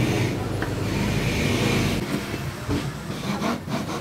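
Kitchen knife slicing grilled squid on a wooden chopping board, with a few short knocks of the blade on the board in the second half, over a steady low rumble that eases about halfway through.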